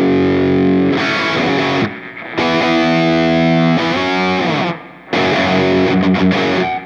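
Electric guitar played through a distorted amp model of a Line 6 POD HD300 modeler, heard dry and direct with no room sound: held, ringing power chords in three phrases, with short breaks about two seconds in and about five seconds in, and cut off just before the end.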